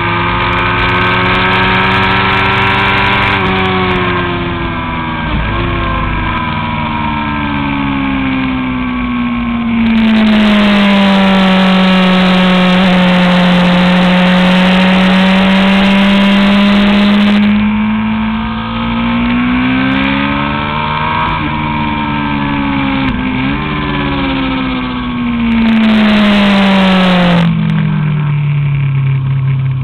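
Honda CBR1000RR's inline-four engine heard from a mount on the bike, its pitch sinking and climbing several times as the rider rolls off and gets back on the throttle through the corners. A rushing wind noise swells over the middle stretch and again briefly near the end.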